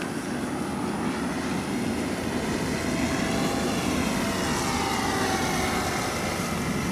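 Radio-controlled model airplane flying overhead, its motor and propeller giving a thin whine that rises in pitch to a peak about halfway through and then falls away.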